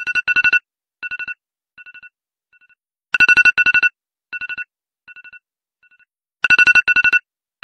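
Smartphone alarm tone: quick bursts of high electronic beeps, each burst followed by fainter repeats that die away, the whole pattern starting over about every three seconds.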